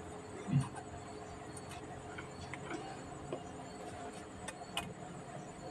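Faint light clicks and taps of a soldering iron tip working the pins of a CRT TV circuit board while the vertical IC's pins are desoldered, over a steady faint hum. A brief low thump about half a second in.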